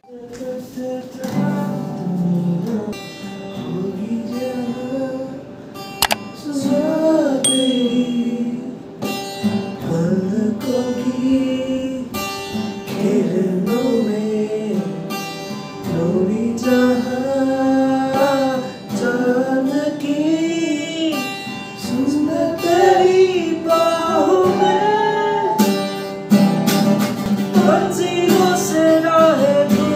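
Acoustic guitar strummed with a voice singing over it in phrases.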